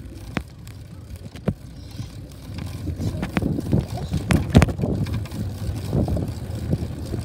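Bicycle riding over brick paving: the tyres rumble and the bike rattles, with wind on the microphone. A couple of sharp clicks in the first two seconds, then louder rattling and knocks from about three seconds in.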